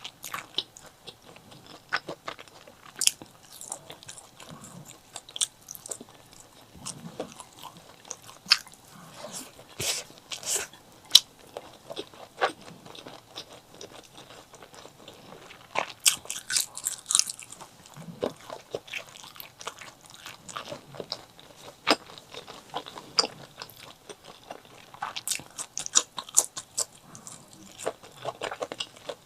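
Close-miked eating of chili and white rice: irregular crisp bites and crunches with wet mouth clicks while chewing, in denser clusters now and then.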